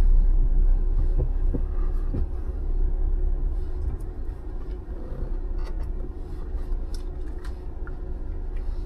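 Jeep engine idling: a steady low rumble with a constant hum, easing slightly in the first few seconds, with a few light clicks and knocks.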